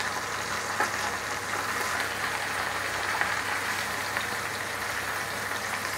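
Masala-coated sardines deep-frying in hot oil in an iron kadai: a steady sizzle with fine crackling.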